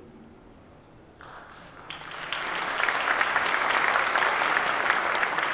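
Large seated audience applauding, starting with a few claps about a second in and swelling to full applause.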